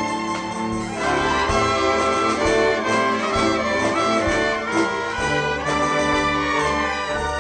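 Symphony orchestra playing a tango, strings and brass together; the music swells fuller about a second in.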